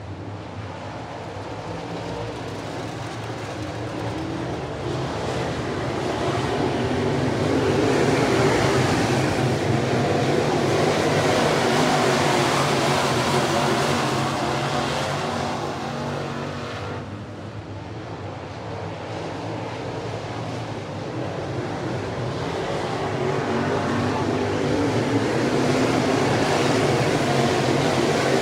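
Dirt late model race cars' V8 engines running at speed on a dirt oval. The sound swells as the field comes by, fades briefly around the middle, then swells again toward the end.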